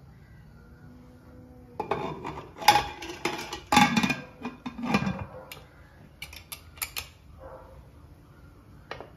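Aluminium pressure cooker lid being fitted and clamped shut, metal on metal: a run of clanks and scrapes starting about two seconds in and loudest around four seconds, then a few light clicks.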